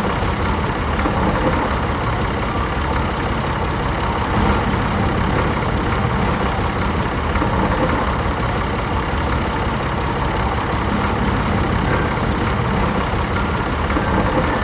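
A vehicle engine idling steadily, a low, even rumble that does not rev or change.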